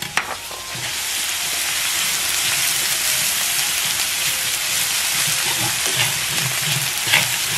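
Garlic and chili bean paste sizzling in hot oil in a wok, stirred with a metal ladle that scrapes and knocks lightly against the pan. The sizzle swells over the first second as the paste hits the oil, then holds steady.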